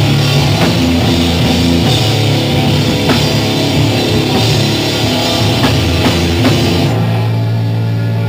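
Post-hardcore band playing live: distorted guitar, bass and a drum kit with crashing cymbals. About seven seconds in, the drums and cymbals stop and held guitar notes ring on.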